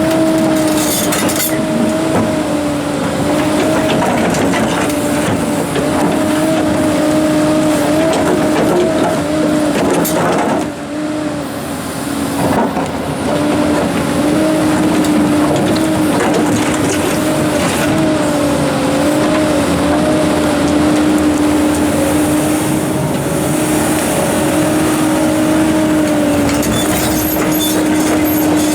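Komatsu PC290-11 hydraulic excavator working under load: its diesel engine and hydraulics run with a steady whine. A few sharp knocks come through, one about ten seconds in, where the engine briefly eases off.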